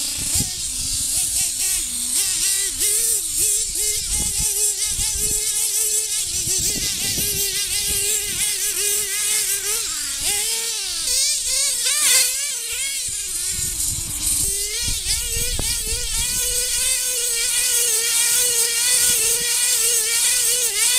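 Nitro RC buggy's small two-stroke glow engine buzzing at high revs, its pitch rising and falling as the throttle is worked on and off while it drives.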